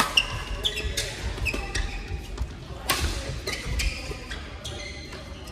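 Badminton play: sharp racket-on-shuttlecock hits, several in quick succession with a loud one about three seconds in, and short high squeaks of court shoes on the rubber court mats, echoing in a large sports hall.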